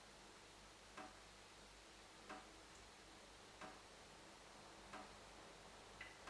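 Tap dripping, faint single drops falling about every 1.3 seconds, five in all, over a low steady hiss.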